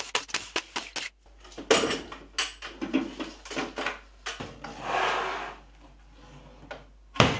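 Wooden router lift being handled and lifted out of a router table cabinet: quick clicks at the start, scattered wooden knocks, a scraping rub partway through, and one loud knock near the end.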